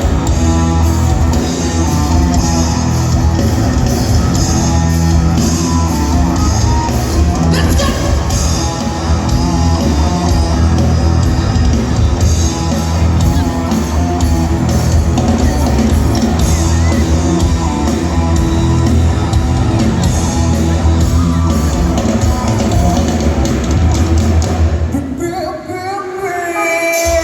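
A rock band playing live, with singing over drums, bass and guitar. Near the end the bass and drums drop out for about two seconds, leaving a higher melodic line on its own before the full band comes back in.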